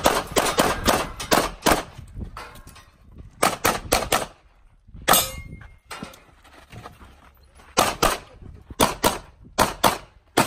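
Pistol gunshots fired in quick strings: a rapid run over the first couple of seconds, then pairs and threes of shots separated by short pauses.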